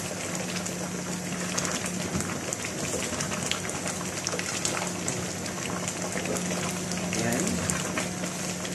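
Pot of mung bean stew with squash and eggplant simmering with a steady crackle of small pops, while a wooden spatula stirs it in the stainless steel pot; the stew has begun to stick to the bottom.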